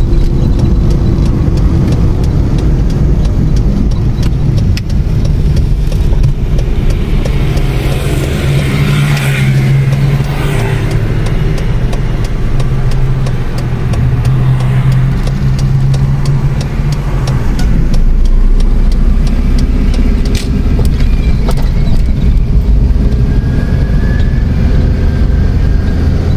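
Small car's engine and tyre noise heard from inside the cabin while it is driven along a street: a steady low rumble, with the engine hum growing stronger for several seconds in the middle and a brief rushing sound about nine seconds in.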